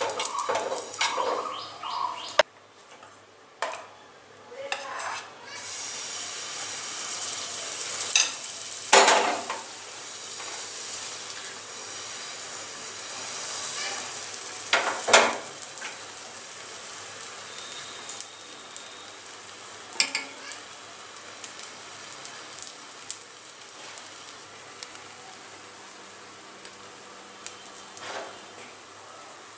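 Oil being brushed across a hot non-stick tawa in quick strokes, then pancake batter sizzling on the oiled pan. The sizzle is broken by two sharp utensil knocks and fades slowly as the batter sets.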